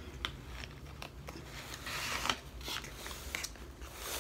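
Soft rustling with small crackling clicks as a rooted Hoya cutting, its leaves and root ball, is handled, denser about two seconds in.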